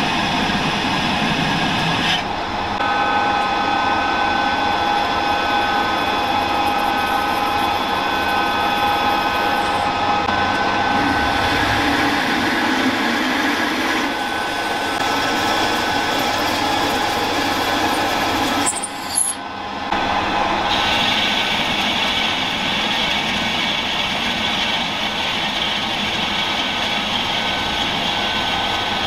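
Metal lathe running with a steady gear whine while a spinning steel shaft is turned and then drilled and bored at its end. The sound changes abruptly about two seconds in, and again around nineteen to twenty-one seconds, where it briefly drops away.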